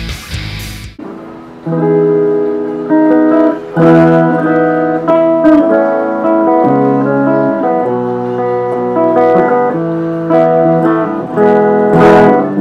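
Yamaha EG112 Stratocaster-style electric guitar on its bridge pickup through a clean amp channel, picking single notes and arpeggiated chords that are left ringing. A burst of harsh, distorted guitar cuts off about a second in, before the clean playing starts.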